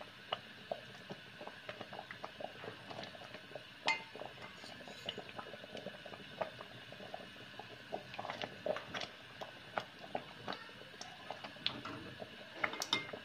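Silicone spatula stirring thick tomato ketchup in a stainless steel pot: wet scraping with irregular light clicks and knocks, one louder about four seconds in and a cluster near the end.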